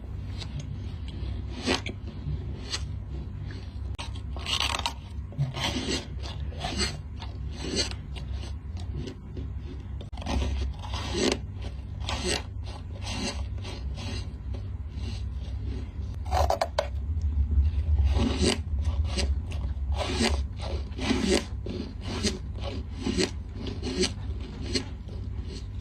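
Squeaky rubbing and scraping strokes, short and irregular, many in a row, over a steady low hum.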